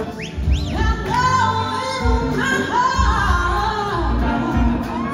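Live rock-soul band playing: electric guitars, bass and drums under a woman singing lead, with long held, sliding notes.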